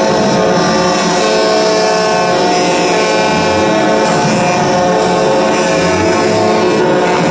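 Many vehicle horns sounding together at once, a steady chord of overlapping tones that holds unbroken.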